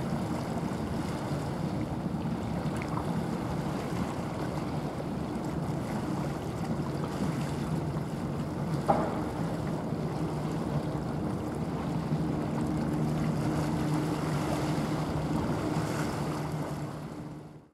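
Small coastal cargo ship passing: a steady low engine drone with a hum, over the wash of water and wind on the microphone. A brief sharp sound about nine seconds in; the sound fades out at the end.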